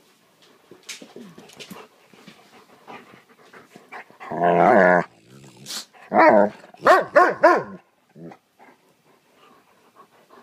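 A dog vocalizing in play: a loud, drawn-out wavering call about four seconds in, then a short yelp and three quick barks a couple of seconds later. Soft rustling and scuffling of the dogs on the bedding fill the gaps.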